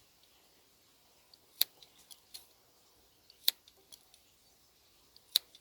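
Small spring-loaded scissors of a Victorinox Farmer X Alox pocket knife snipping paracord: three sharp snips, roughly two seconds apart, each with small ticks of the blades just before it.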